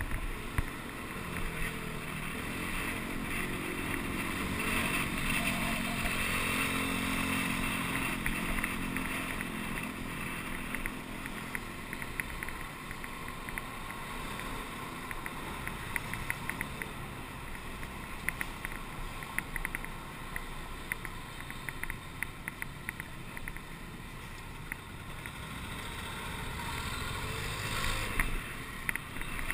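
Motorcycle engine running under way, with wind and road noise on the microphone. Its pitch rises as it speeds up over the first few seconds and then holds steady through light traffic.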